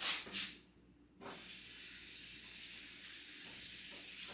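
Kitchen faucet turned on about a second in, water running steadily into the sink to rinse something off. Two short noises come just before the water starts.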